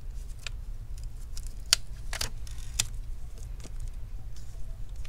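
Sharp little clicks and taps of plastic connectors and cables being handled inside an opened laptop, about half a dozen, the loudest about a second and a half in, over a steady low hum.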